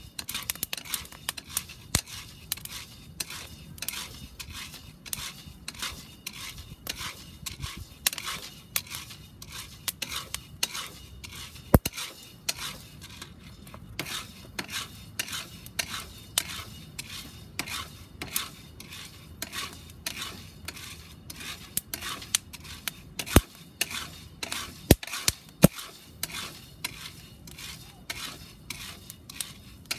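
Coffee beans crackling as they roast in a cast-iron pot: sharp, irregular cracks, several a second, with a few louder pops. This is the sign the roast has reached the cracking stage. Beans rattle in the pot as a wooden spoon stirs them.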